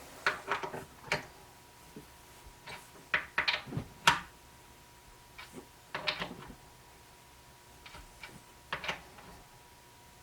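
Short clusters of metallic clicks and clinks from a wrench and socket turning the intermediate band adjusting screw of a Ford C6 automatic transmission, as the screw is run in toward its 120 inch-pound setting.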